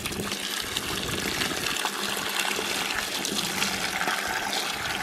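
Water pouring steadily into a water tote as it fills, a continuous rushing splash.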